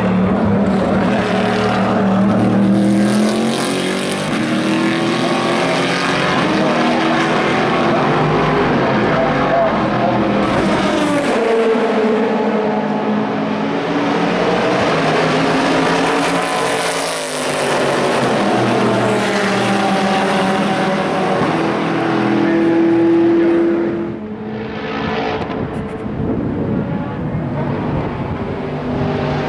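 Chevrolet Corvette C7.R race cars' V8 engines at racing speed, revs climbing and falling with gear changes and braking as cars pass several times. About 24 seconds in, the engine sound drops to a quieter, more distant note.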